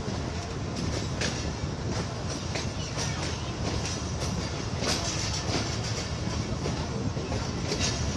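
Train running at speed along the track: a steady rumble with scattered sharp clacks of the wheels over the rails.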